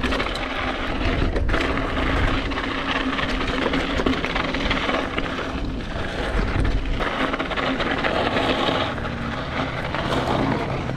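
Mountain bike riding fast down a loose dirt singletrack: a continuous rush of tyre and wind noise on the action camera's microphone, with frequent clicks and rattles from the hardtail bike.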